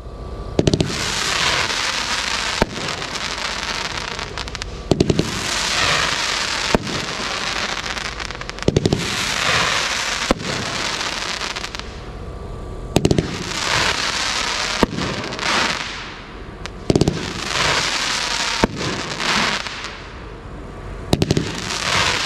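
Hammer & Anvil 'Rock On' 24-shot firework cake firing. Groups of sharp bangs come about every four seconds, with a lingering hissing noise between them.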